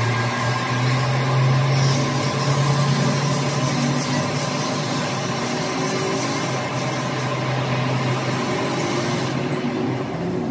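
Motor vehicle engine running steadily, its low hum rising slightly in pitch over the first few seconds.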